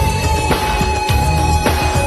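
New jack swing R&B track: a steady beat with deep bass and a long held note, with no vocal line standing out.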